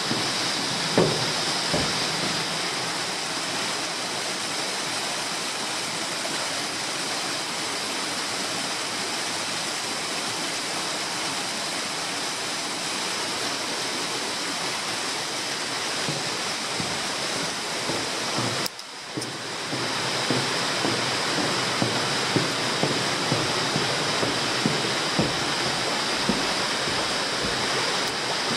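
Steady rushing, water-like noise. About two-thirds of the way in it drops out briefly, and scattered light knocks follow.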